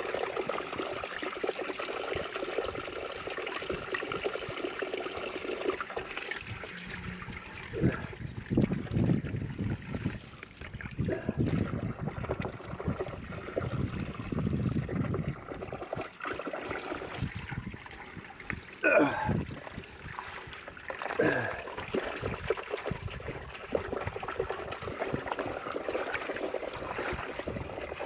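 Water trickling and running steadily from a broken low-pressure rainwater pipe into a trench. Louder bursts of splashing and handling in the water come through the middle.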